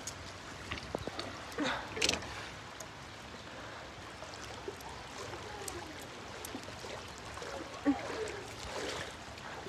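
Rubber boots wading and splashing through shallow moat water, the loudest splashes about two seconds in, against a steady background of running water.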